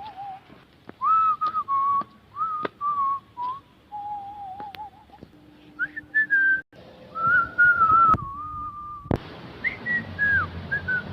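A person whistling a melody with the lips in a mock art-whistling style: a single clear tone that wavers and slides up and down between notes. A few sharp clicks fall among the phrases, and a steady hiss of background noise comes in about nine seconds in.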